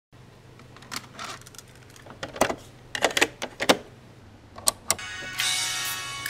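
Clicks and clunks of a Sharp GF-6600 boombox's cassette keys and tape mechanism being worked by hand, over a steady low hum. Music starts playing near the end.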